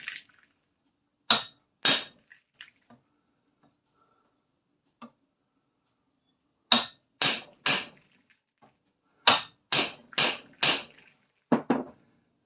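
Hammer striking a drift against a stuck bolt in the rear trunnion of a Triumph Spitfire 1500: about eleven sharp metal blows in short bursts, and the bolt isn't budging.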